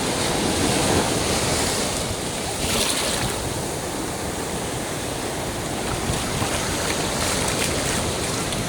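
Ocean surf washing steadily onto the shore, with wind buffeting the microphone.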